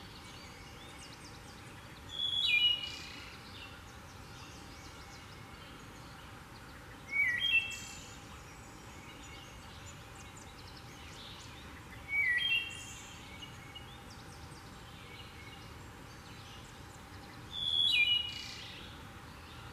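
Wood thrush singing: four short song phrases, each about a second long, spaced roughly five seconds apart.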